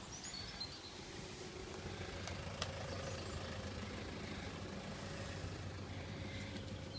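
Vehicle engine idling: a steady low hum, with a single sharp click about two and a half seconds in.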